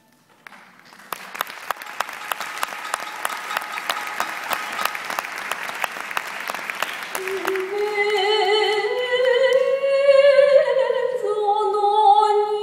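Audience applause of many hands clapping, lasting about six seconds, dying away as a single singing voice comes in, holding long notes that slide up and down.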